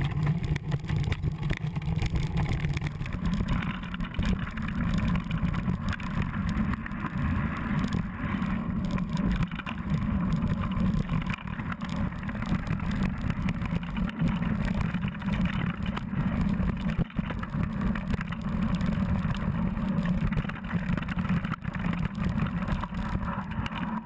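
Mountain bike riding over rocky, gravelly singletrack, heard from a camera mounted on the bike: a steady low rumble of wind and vibration on the microphone, with the knobby tyres crunching over loose rock and the bike rattling.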